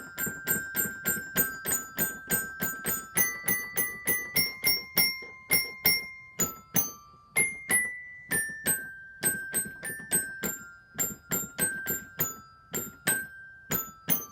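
Electronic keyboard set to a xylophone sound, playing a quick tune of struck notes, about three to four a second, mostly repeated two-note chords that step to new pitches.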